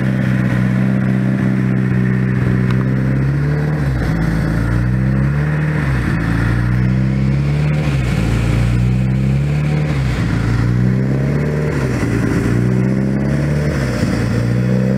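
Freshly installed turbocharged 2.0-litre four-cylinder (3S-GTE) of a 1990 Toyota Celica GT-Four idling steadily, then revved about six times in quick succession, each rev rising and falling back.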